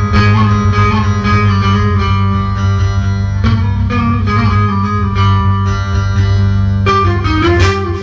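Instrumental interlude of a Turkish folk song: a plucked string instrument plays the melody over a steady low drone, with a new phrase beginning near the end.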